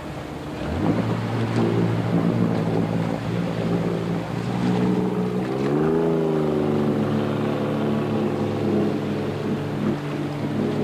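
Jet boat engine running steadily under power; its pitch rises a little just past halfway, then holds.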